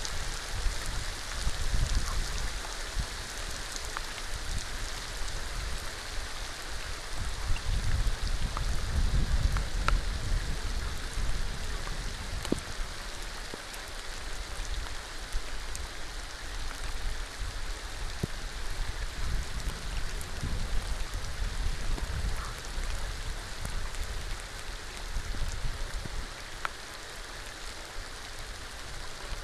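Steady rain falling on a shallow pool, with scattered sharp ticks of single drops over an even hiss and a low rumble that swells and fades.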